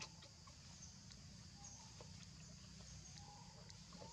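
Near silence: a faint steady outdoor background with scattered short, high chirps.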